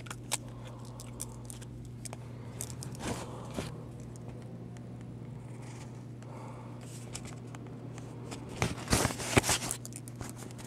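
Paper pages of a car maintenance booklet being handled and turned: soft rustling and small clicks, with a louder burst of rustling near the end, over a steady low hum.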